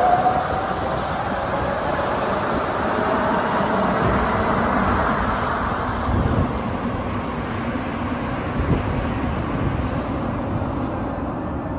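A Sapporo Municipal Subway 5000-series rubber-tyred train pulling out of the station. Its inverter motor whine rises in pitch as it gathers speed over a steady rumble of the passing cars, and the sound eases off slightly near the end as the train heads into the tunnel.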